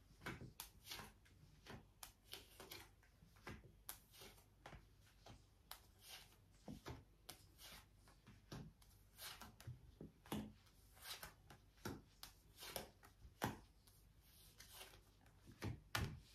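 Tarot cards being dealt off the deck and laid down on a cloth-covered table: faint, irregular flicks and taps of card on card and cloth, a couple each second.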